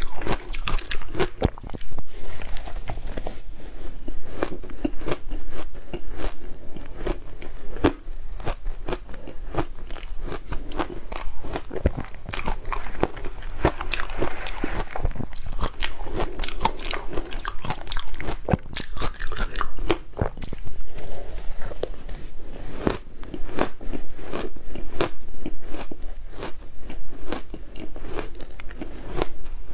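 Close-up crunching and chewing of frozen matcha shaved ice: a dense, unbroken run of crisp, crackling bites.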